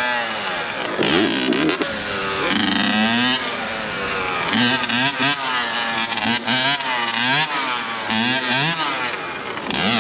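Yamaha YZ85 two-stroke dirt bike engine revved in quick repeated blips, its pitch climbing and dropping with each twist of the throttle while the bike is held in a wheelie. The rider nearby calls the two-stroke boggy.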